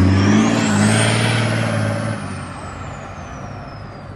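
BMW 435d's twin-turbo straight-six diesel driving away, its turbo whistle climbing to a high pitch and then slowly falling. The engine note fades out about two seconds in.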